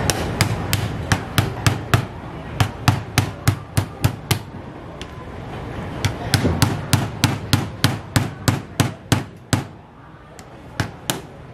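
A steel knife-sharpening rod rapping a live mud crab's claw to crack the shell: quick series of sharp knocks, about three to four a second, with a short pause midway and a last few knocks near the end.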